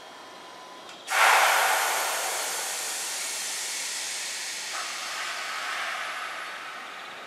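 Sudden loud hiss of compressed air venting from a JR Central 311 series electric train during its start-up, fading slowly over several seconds and changing tone about halfway through.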